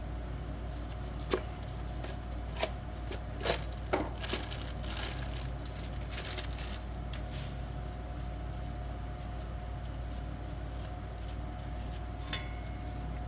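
Scattered sharp clicks and knocks of small parts and packaging being handled, mostly in the first few seconds, over the steady hum of a shop fan.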